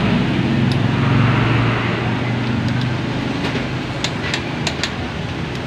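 A motor vehicle's engine hum, steady and low, loudest over the first two seconds and then easing off. A few sharp metallic clicks follow about halfway through from a socket ratchet on the connecting-rod cap nuts.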